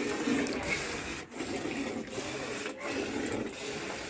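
Cow being milked by hand, milk squirting into a pail in a run of uneven swishes.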